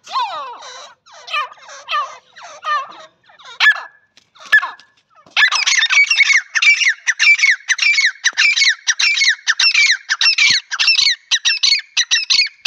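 Grey francolins calling: separate short calls about twice a second, then from about five seconds in a loud, fast, unbroken series of falling notes, several a second.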